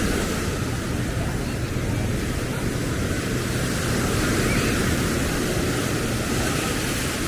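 Steady wash of ocean surf breaking on the beach, with wind on the microphone and a low hum under it.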